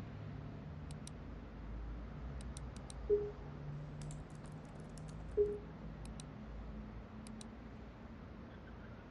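Typing on a laptop keyboard in short bursts of clicks. Twice, at about three and five and a half seconds in, a short low ping sounds as a new chat message arrives; the pings are the loudest sounds.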